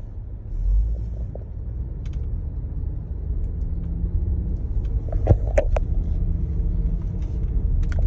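Steady low rumble of a 2019 Jeep Grand Cherokee driving on a snow-covered road, heard from inside the cabin. It grows slowly louder, with a few sharp clicks about five seconds in.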